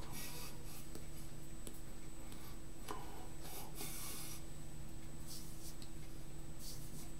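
A steady low electrical hum with a few short, soft scratchy rustles over it, like a pen or hands brushing a surface.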